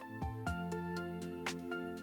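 Background music: a slow melody of separate notes over a held low note.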